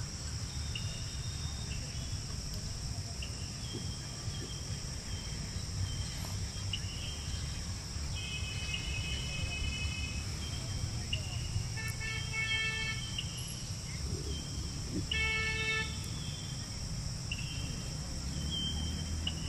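Steady chorus of insects, a continuous high buzz, over a low rumble, with scattered brief high chirps. Twice in the second half, a few seconds apart, a short pitched call stands out.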